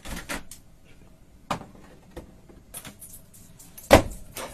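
Knocking and clacking of a pet door flap and a long chew bone striking the door, as a dog tries to push through the pet door with the bone held crosswise. There are about five separate knocks, the loudest about four seconds in.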